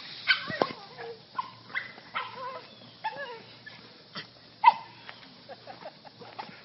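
Dog whining and yelping in excitement at greeting a person: a string of short high cries that bend in pitch, with one loud yelp a little past halfway.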